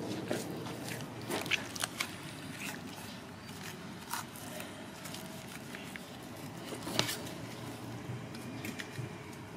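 Knife cutting and scraping through a raw ostrich carcass, with meat and fat being pulled apart: scattered wet clicks and crackles over a steady background hiss, one sharper knock about seven seconds in.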